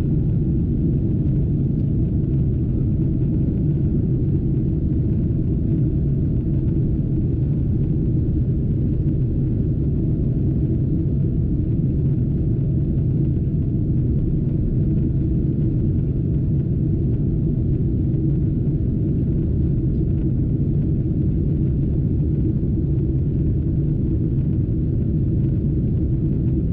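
Cabin noise of a Boeing 777-200 just after liftoff and in the initial climb: a steady, deep rumble of its twin turbofan engines at takeoff thrust and the rushing air, heard from inside the cabin.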